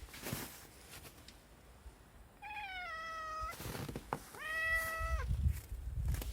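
A cat giving two long meows about a second apart, the first falling slightly in pitch, the second held level. They are calls, like a mother cat calling a kitten.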